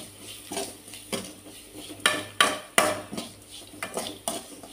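Flat metal spatula scraping and knocking against a kadai as onion and spice masala is stirred, in irregular strokes with a few sharper clinks about halfway through.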